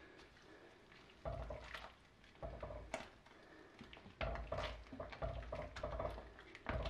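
A ladle stirring soup in an enamelled pot: several short spells of liquid swishing, with a few light clicks of the ladle against the pot.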